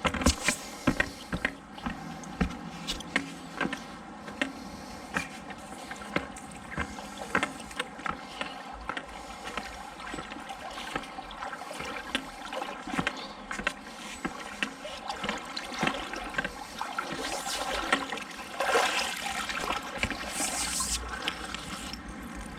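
Water sloshing and splashing from someone wading through a shallow river, with many small knocks and clicks throughout and a stronger surge of splashing about three-quarters of the way in.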